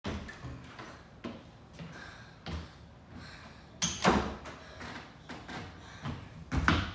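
A door opening with a sharp knock about four seconds in, followed by footsteps on the stage floor near the end.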